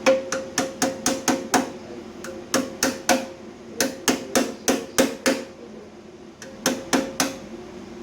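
Hammer tapping on sheet metal in quick runs of three to seven blows, about three a second, with short pauses between runs.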